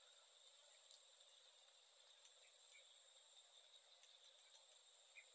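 Insects trilling in a faint, steady, high-pitched chorus.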